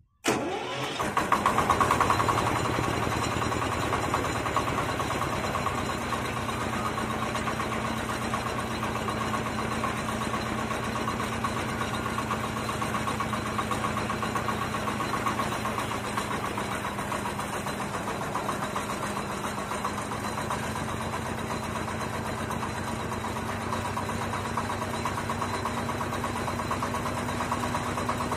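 Mini half-feed rice harvester's engine starting: it catches almost at once, runs louder for the first two or three seconds, then settles into a steady idle.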